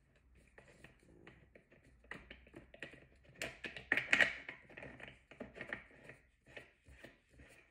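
Clear plastic bean hopper being seated and turned on the metal collar of an electric coffee burr grinder: a string of irregular light clicks and taps, loudest between three and a half and four and a half seconds in.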